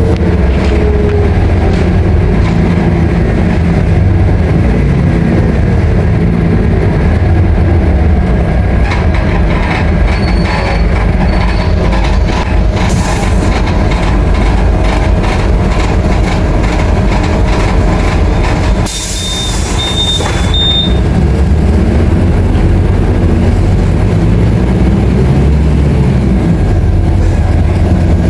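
Scania K310IA articulated bus's diesel engine running loudly under way, its low drone rising and falling as the bus speeds up and slows. About two-thirds of the way through comes a short burst of air hiss, with a few high beeps over it.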